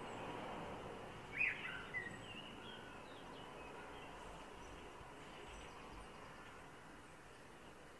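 A few short bird chirps between about one and a half and two and a half seconds in, with a few fainter ones after, over a steady outdoor background hiss.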